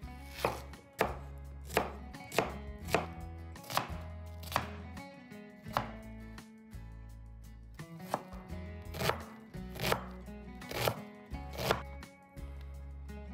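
Chef's knife cutting a peeled onion on a bamboo cutting board: a series of sharp knocks of the blade on the wood, a little more than one a second, with a pause of about two seconds midway.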